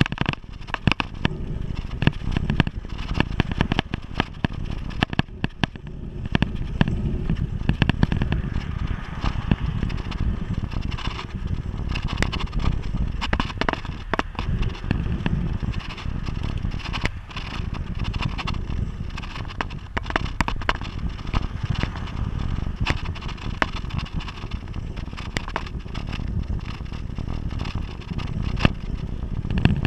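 Low, steady rumble of wind on the microphone and tyres on asphalt from a camera riding on a moving bicycle, with frequent sharp clicks and rattles from the camera and bike jolting over the road surface.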